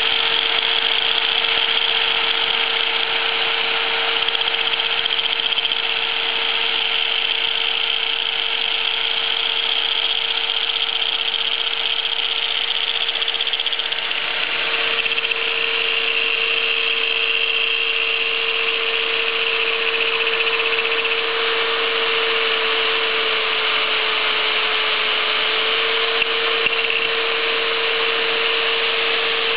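Electric angle grinder running with its disc grinding a weld on a steel shaft turning in a homemade drill-driven lathe: a steady motor whine under a continuous grinding hiss that changes in tone about halfway through.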